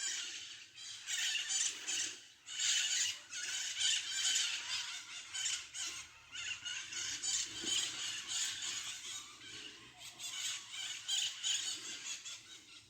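A flock of maritacas (small parrots) screeching, many shrill calls overlapping without a break.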